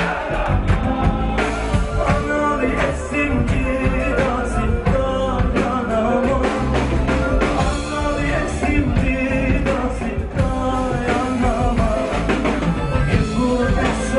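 Live Black Sea folk-rock band playing: a bowed Karadeniz kemençe carries the melody over a rock drum kit, with a man singing.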